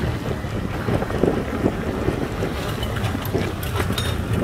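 Wind buffeting the microphone over the steady, low chugging of a công nông farm truck's single-cylinder diesel engine, with a few sharp clicks and rattles near the end.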